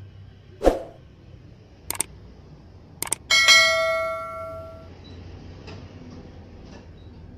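A single bell-like ring with several overtones, struck about a third of the way in and dying away over about a second and a half. Before it come a loud thump and two quick pairs of clicks, over a faint steady hum.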